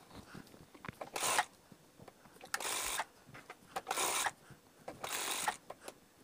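Industrial lockstitch sewing machine stitching a narrow piping strip onto a fabric edge in short runs, four brief bursts about a second and a half apart, stopping between runs to guide the fabric.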